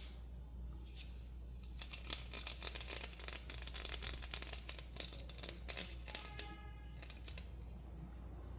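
Toy packaging being handled and opened: a dense run of crackling and tearing clicks for a few seconds, ending in a brief squeak, over a low steady hum.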